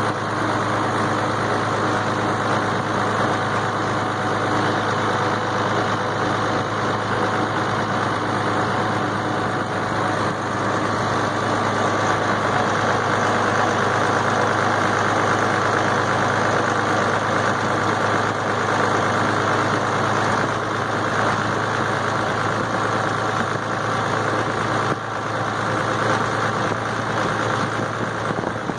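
International Harvester tractor engine running steadily under way, heard from the seat just behind its upright exhaust stack, with an even, unchanging note.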